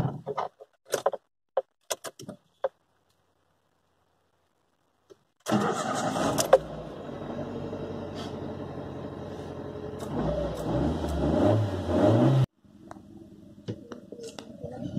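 Ford Fiesta engine starting from cold with a newly fitted coolant temperature sensor. After a few clicks and a short silence, the engine starts about five seconds in and runs with revs that rise. It then drops suddenly to a quieter idle near the end.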